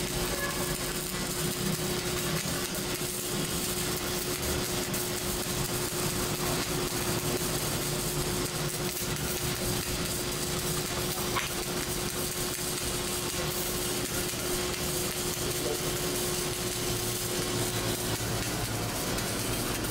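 Welding machine running with a steady hum over an even hiss. The hum stops shortly before the end.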